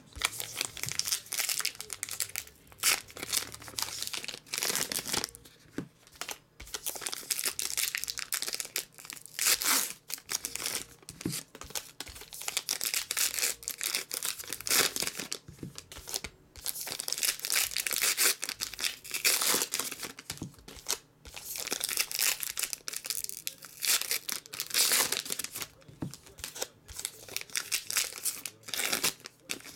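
2019 Topps Heritage baseball card pack wrappers being torn open and crinkled by hand, in irregular bursts of rustling with short pauses.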